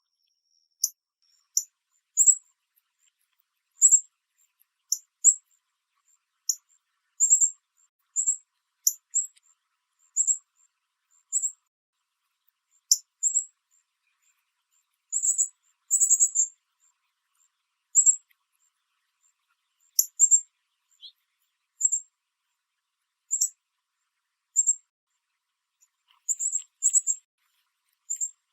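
Northern cardinal giving short, sharp, high chip calls, each a quick downward sweep. They come singly every second or so, some in quick pairs or clusters, with silence between.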